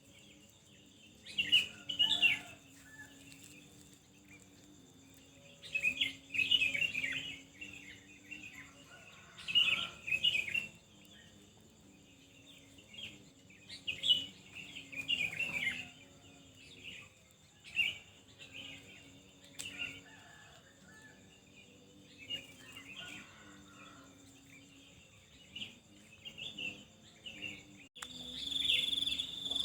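Small birds chirping in clusters of quick high notes every few seconds, over a faint steady high-pitched tone. About 28 seconds in, the sound changes abruptly to a louder, steady high trill like insects such as crickets.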